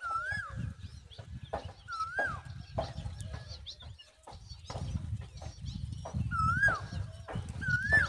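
Common babbler calling at its nest: a short whistled note that rises then falls, repeated about four times, with a longer gap in the middle. Under the calls are scattered rustling clicks and an uneven low rumble that grows louder in the second half.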